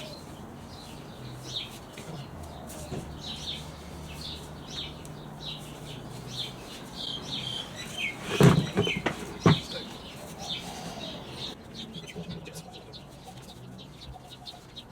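Small birds chirping over and over in short high notes, with two loud knocks about a second apart midway through.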